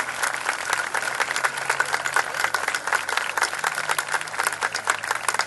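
A large crowd applauding, many hands clapping at an even level.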